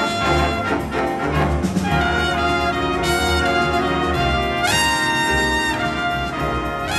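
Jazz big band playing, led by the brass section of trumpets and trombones with saxophones, in loud held chords. About two-thirds of the way through, the horns sweep up together into a new held chord.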